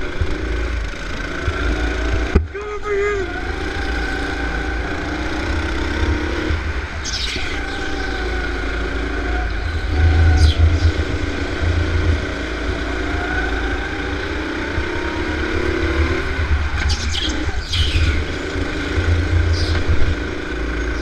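Go-kart engines running, their pitch rising and falling slowly with the throttle.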